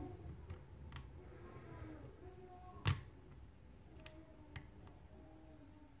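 Lock pick clicking against the pin tumblers of a mortise lock cylinder held under tension during single-pin picking: a few faint ticks and one sharper click about three seconds in.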